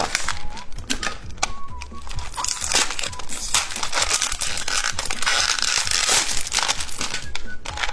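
Plastic packaging of a phone-shaped candy crinkling and rustling in quick, irregular crackles as it is handled and unwrapped, over background music.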